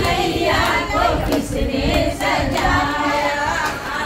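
A group of women singing together without instruments, their voices gliding up and down in a drawn-out melody.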